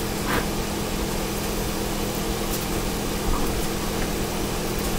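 A steady hum and hiss from a running machine, with a few faint clicks of a spatula against a cast-iron pan.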